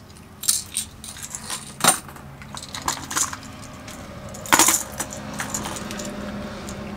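Hard plastic fishing lures with metal treble hooks clinking and clattering against each other as they are picked through by hand in a plastic tackle box. There are several separate clicks, the loudest about four and a half seconds in.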